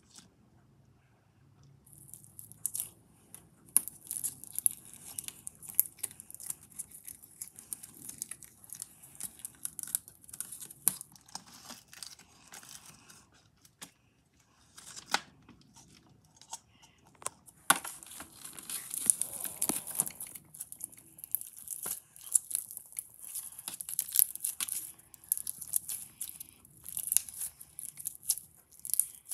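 Clear slime packed with small beads being poked and squeezed by hand, giving a dense, irregular crackling and popping, with a short lull about halfway before it picks up again.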